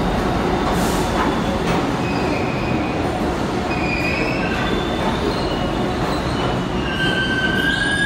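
New York City subway train running out of the station past the platform, a steady loud rumble of the steel cars on the rails. Brief high-pitched wheel squeals come and go from about two seconds in, more often near the end as the last car pulls away.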